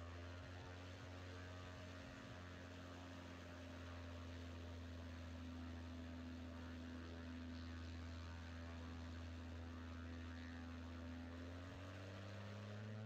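Cessna 185's Continental IO-520 flat-six engine running at low power as the plane rolls down the runway, heard as a steady, muffled drone with a faint change in pitch near the end.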